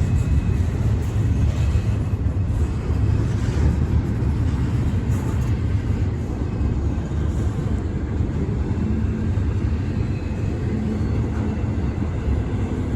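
Freight train rolling past a grade crossing: a steady low rumble of railcars on the track, with no horn.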